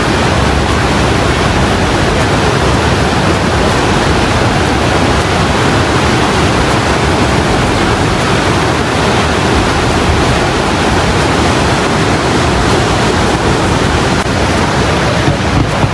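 Niagara River rapids rushing: a loud, steady, unbroken noise of white water.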